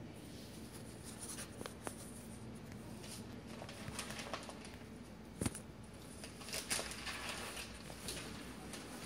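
Handling noise close to the microphone: scattered light clicks, taps and brief rustling from the recording phone being held and moved against the window, over a low steady room hum.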